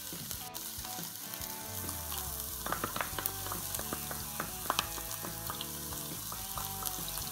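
Diced onion sizzling in hot oil and butter in a nonstick frying pan as it starts to sauté, with a few light clicks against the pan.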